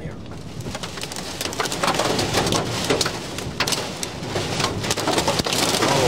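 Heavy rain from a thunderstorm downburst pelting a vehicle's roof and windows: a dense patter with sharper individual hits, getting louder over the few seconds.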